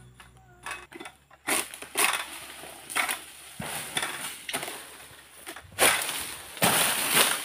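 Camel King 111 pole sickle pulled through oil palm frond bases: a series of crunching, rasping cutting strokes, roughly one a second, with louder, longer strokes near the end.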